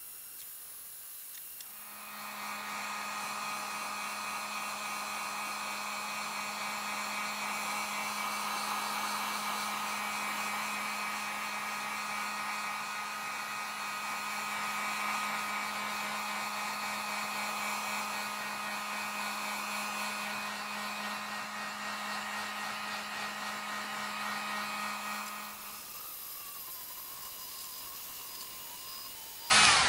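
Heat gun blowing hot air steadily over a plastic helmet shell, a fan hiss with a steady low hum, heat-resurfacing the HDPE to take out scratches and dullness. It is louder from about two seconds in until a few seconds before the end.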